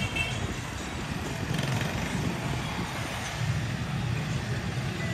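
Street traffic in a town below, a steady low rumble of vehicles going by.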